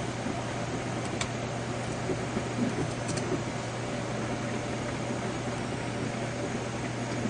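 Steady low hum under an even hiss, like a fan or air conditioner running, with a faint click about a second in.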